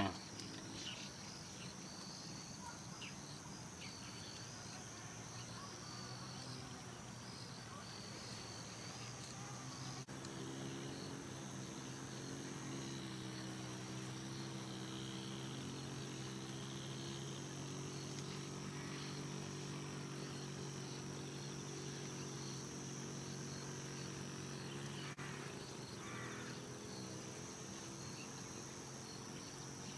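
Crickets and other field insects chirping steadily: a high continuous trill with a regular pulsed chirp just beneath it. From about ten seconds in, a low steady hum joins and fades out near twenty-five seconds.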